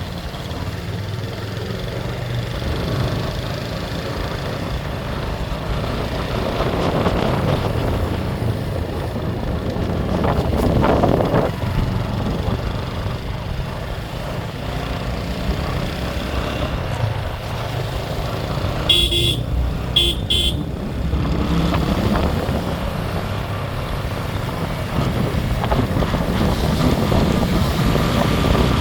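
Motorcycle riding along a wet street, its engine running steadily under road noise. A horn beeps twice in quick succession about two-thirds of the way through.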